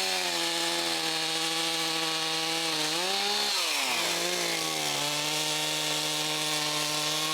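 Big two-stroke chainsaw running at high speed. About three seconds in its pitch rises briefly, then drops sharply and settles a little lower: the engine pulling down as the chain cuts into a tree trunk.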